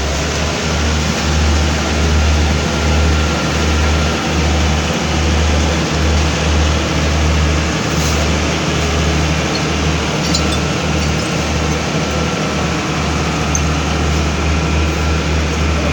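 Heavy road-paving machinery running steadily during asphalt laying, its engines giving a loud continuous rumble with an uneven low throb.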